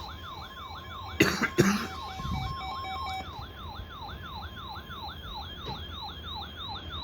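Electronic siren wailing in rapid repeated downward sweeps, about three or four a second, over a steady tone. Two loud coughs come about a second in.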